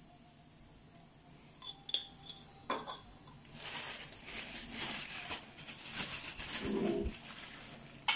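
A few light taps, then several seconds of plastic crinkling and rustling from about three and a half seconds in, as a plastic packet is handled; a sharp click comes near the end.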